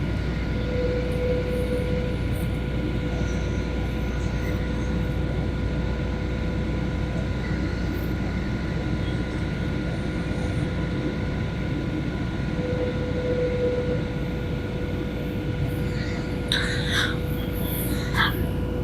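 Steady drone of an airliner in flight heard from inside the passenger cabin: a low rumble of engines and airflow with a few steady whining tones on top. A few brief, faint higher sounds come near the end.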